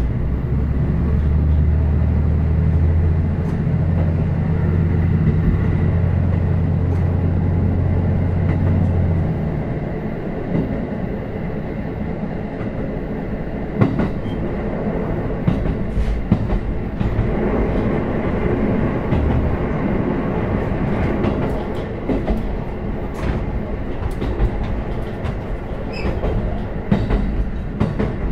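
Onboard running sound of a KiHa 54 diesel railcar. The engine drones steadily under power for about the first nine seconds, then its tone falls away, leaving the rumble of wheels on rail with scattered sharp clacks over rail joints.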